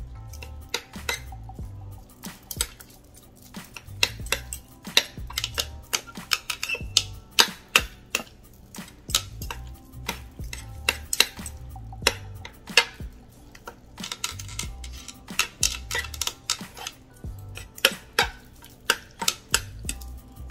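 Metal forks clinking and scraping against the inside of a slow cooker's crock while shredding cooked chicken, in quick irregular clicks, several a second at times.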